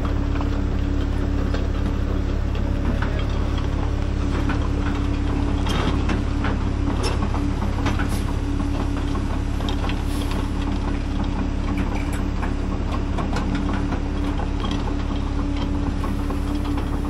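Heavy diesel engines idling steadily with a deep, even hum, with scattered metallic clicks and clanks through the middle stretch.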